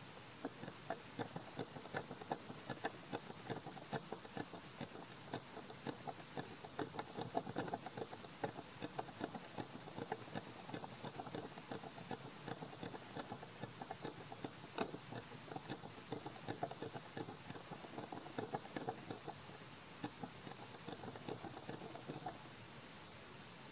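A monkey chewing close to the microphone: rapid, irregular crunching clicks that stop suddenly about 22 seconds in, leaving a faint hiss.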